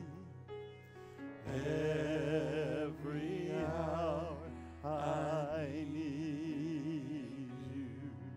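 Live worship band playing a slow worship song with singers, sustained bass and keyboard under voices with vibrato. After a quieter instrumental passage, the singing comes in strongly about a second and a half in.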